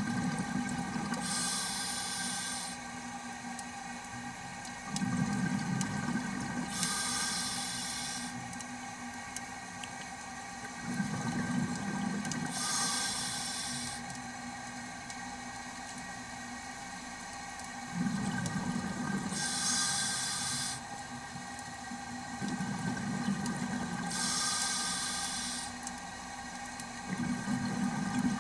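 Scuba diver breathing through a regulator underwater: a low bubbling rush of exhaled air alternating with the sharp hiss of each inhalation, about one breath every five to six seconds, over a steady faint hum.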